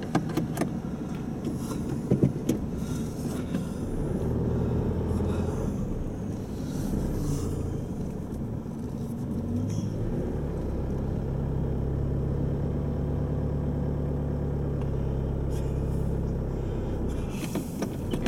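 Four-wheel-drive vehicle's engine running at low revs under load as it crawls over a rock, the engine note growing stronger about ten seconds in. A couple of short knocks sound in the first two seconds.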